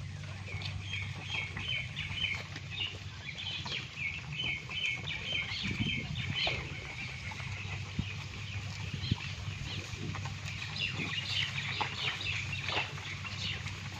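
Birds chirping and chattering in two long spells, over a steady low hum.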